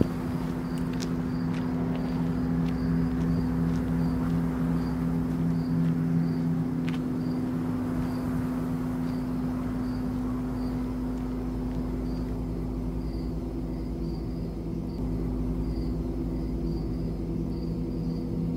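A steady low drone of several held tones, with faint cricket chirps pulsing high above it at about two a second, growing denser near the end.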